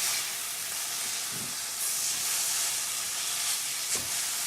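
Chopped vegetables sizzling in a frying pan as they are stirred, a steady hiss of steam that grows stronger about halfway through, with one sharp knock near the end.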